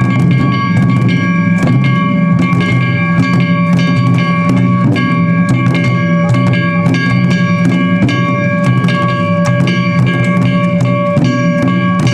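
Japanese festival taiko drumming: dense, continuous drum strikes with a steady high pitched tone held over them.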